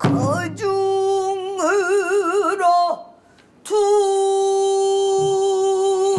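A pansori singer's solo voice sings a held note, then shakes it in a wide, slow vibrato. The voice breaks off about three seconds in and comes back on one long, steady held note.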